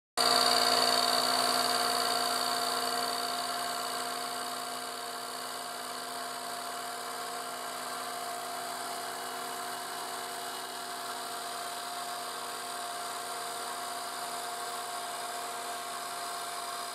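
Milling machine spindle running with a steady, multi-tone whine as the cutter faces the surface of a 3D-printed plastic engine housing. The sound is loudest at the start and settles to a lower steady level after about four seconds.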